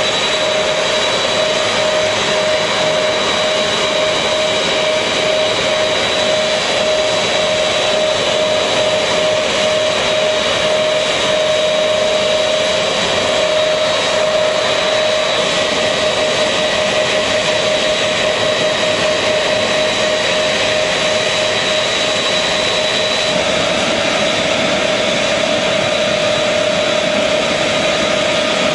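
Aircraft jet engines running steadily: a continuous, unchanging noise with a steady high whine over a lower steady hum.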